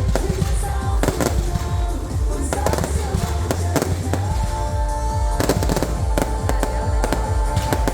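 Fireworks bursting in rapid succession over a deep rumble of booms, with a dense run of bangs just past the middle. Music plays along, with a held note from about halfway.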